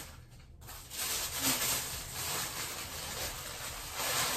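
Wrapping paper rustling and crumpling as it is handled and pulled off a new handbag, starting about half a second in and going on unevenly.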